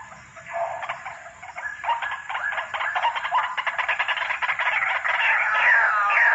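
White-breasted waterhen calling: a fast run of harsh, rapidly repeated notes that grows louder, with downward-sliding notes near the end.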